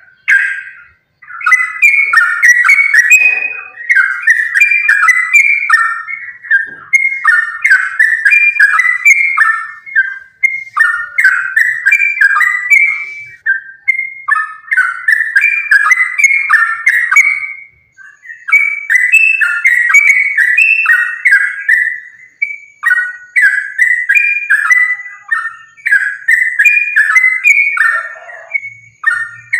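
Yellow-vented bulbul (trucukan) singing a rapid, bubbly chain of whistled phrases almost without pause, the excited 'gacor' fighting song used as a lure to make other trucukan sing. There are brief breaks about 14 and 18 seconds in.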